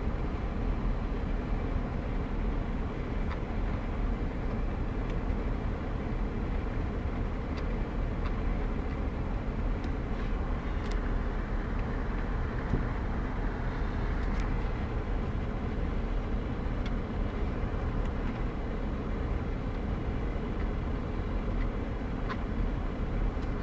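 Steady low hum of a Porsche Cayenne Turbo's cabin with the engine running, with a few faint clicks of head-unit buttons being pressed. No sound comes from the radio, whose PCM head unit has lost its volume.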